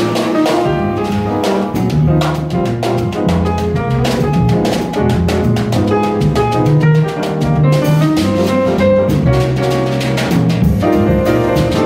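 Jazz piano trio playing live: grand piano, plucked double bass and drum kit with cymbals.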